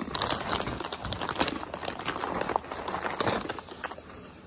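Hand rummaging in a crinkly plastic potato-chip bag: a dense run of crinkles and crackles that dies away near the end.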